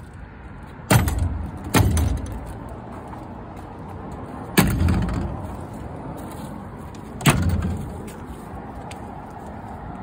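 Small hinged plywood kennel doors being swung shut against the wooden box: four sharp wooden bangs, each with a short hollow boom.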